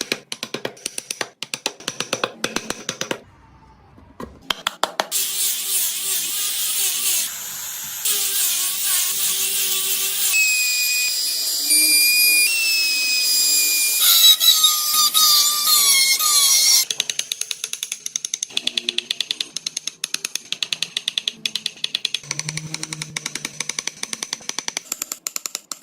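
A small high-speed power tool carving wood: a high-pitched whine that slides in pitch as the bit bites, and long runs of rapid sharp clicks.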